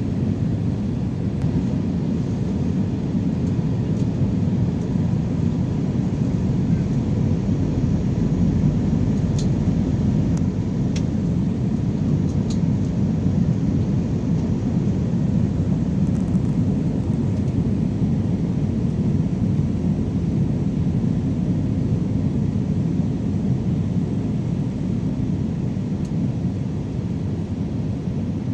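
Steady low roar of airliner cabin noise aboard an Airbus A320-216 with its CFM56-5B engines running, with a faint steady hum on top and a few faint ticks in the middle.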